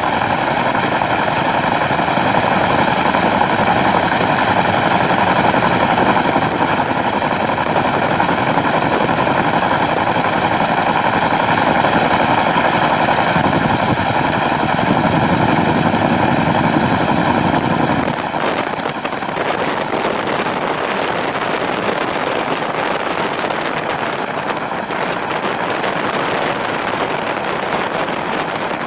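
CH-47D Chinook twin-rotor helicopter running in flight, heard from a camera on top of the fuselage: a loud steady noise with several steady high tones over it. About 18 seconds in the tones fade and a rougher wind noise on the microphone remains.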